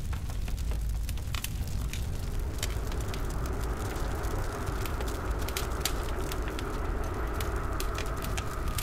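Burning photographs crackling, with sharp pops scattered through, over a steady low rumble. About two and a half seconds in, a droning hum swells in beneath the crackle.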